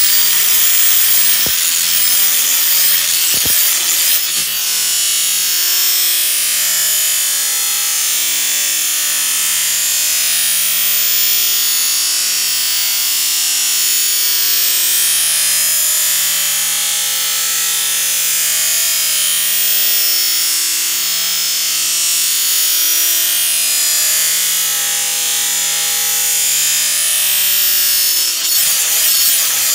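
DeWalt right-angle grinder's disc grinding the cutting edge of a steel Oregon G6 Gator mulching lawnmower blade to sharpen it: a steady, hissing grind of abrasive on steel, with a few sharp clicks in the first four seconds.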